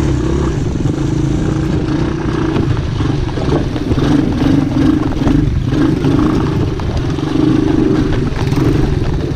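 A 125 cc single-cylinder ATV engine running under changing throttle while being ridden over rough dirt, its note rising and falling. Frequent knocks and rattles come from the machine bouncing over the ruts.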